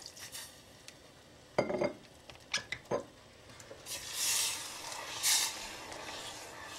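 Wooden spoon stirring brandy into melted plum butter in a small metal saucepan: a few sharp knocks against the pan about two seconds in, then scraping, swishing strokes.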